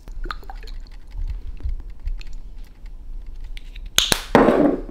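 Chili flakes being shaken out of a spice jar: scattered light ticks and clicks, then about four seconds in a sharp click followed by a brief louder rustle.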